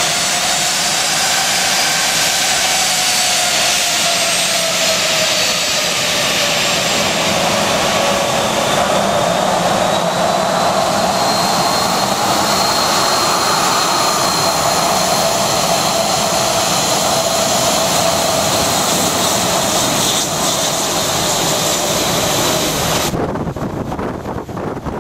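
Boeing 737's CFM56 turbofan engines whining at taxi power close by, a loud steady whine whose tones slowly waver in pitch. Near the end the high whine drops away and a rushing of jet blast on the microphone takes over, as the jet turns its engines toward it.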